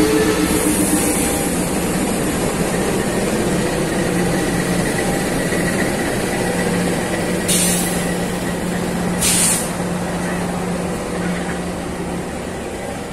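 Diesel locomotive idling with a steady, loud drone and hum. Twice, about seven and a half and nine seconds in, a short burst of compressed air hisses, typical of a train's air brake system venting.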